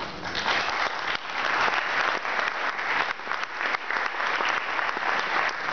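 Audience applauding: dense clapping from many hands that starts abruptly and holds steady.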